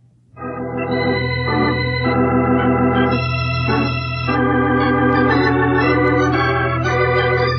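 Organ music bridge: sustained chords that shift every second or so over a steady held bass note, coming in just after the last line of dialogue.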